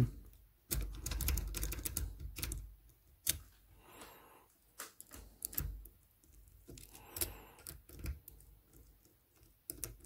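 Jiggler key being worked in the wafer cylinder of an ERA window snap lock while a tension wrench holds light tension. It makes irregular small metallic clicks and scrapes as it rakes over the wafers, busiest in the first few seconds.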